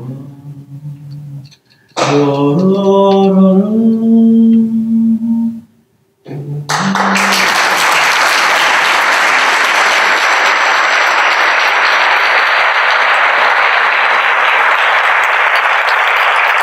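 A man's voice sings a few slow, held notes that step in pitch, broken by short pauses. About seven seconds in, a theatre audience breaks into applause that continues steadily.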